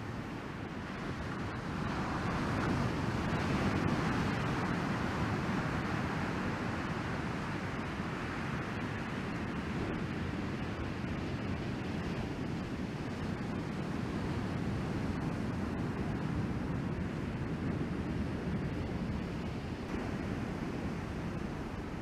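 Ocean surf breaking and washing up a sand beach: a steady rush of waves that swells a little a few seconds in, with some wind on the microphone.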